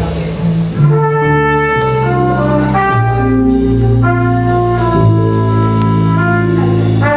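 Trumpet playing a melody in held notes over double bass and a small band, a Swedish folk song arranged for jazz combo.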